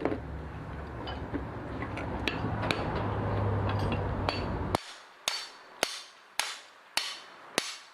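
A steady low hum with scattered metal clinks cuts off abruptly about two-thirds of the way in. It is followed by about five sharp hammer blows on metal, roughly half a second apart, each ringing briefly.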